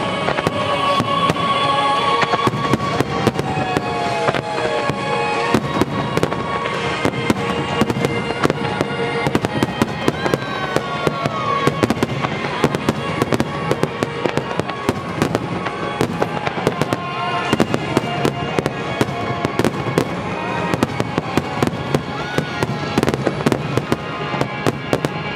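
Starmine fireworks display: a rapid, dense barrage of shells bursting and crackling, with music playing underneath.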